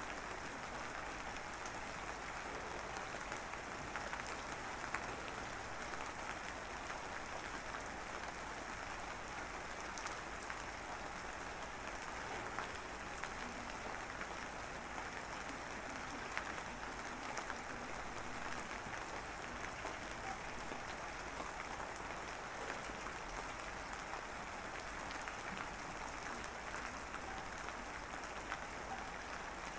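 Steady background hiss with a dense crackle of many small ticks, unchanging throughout.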